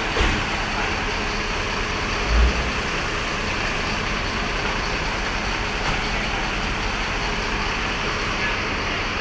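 Steady background of vehicle and traffic noise, with a brief low thump about two and a half seconds in.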